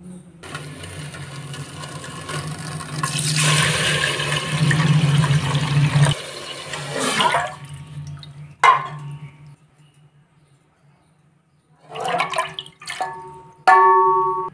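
Water being poured into an aluminium pressure cooker, a steady rush that lasts several seconds and builds in the middle. It is followed by a clink and then several ringing clinks near the end, as a stainless steel bowl knocks against the pot.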